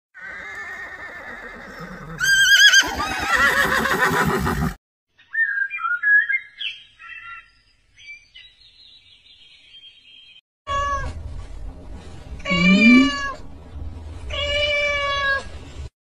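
Animal calls cut one after another: a horse's quavering whinny a couple of seconds in, then scattered high bird chirps, then three drawn-out cat meows near the end.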